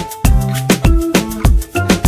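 Background music with a quick steady beat, about three beats a second, over bass and pitched notes.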